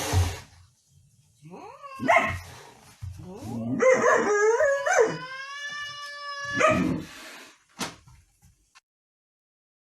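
A dog yelps a few times and howls once, a single long howl lasting about three seconds.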